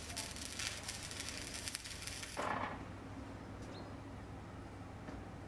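Electric welding arc crackling rapidly, as the overplate is spot welded to the steel hull, stopping about two and a half seconds in with a short rush of noise. A low steady hum runs underneath.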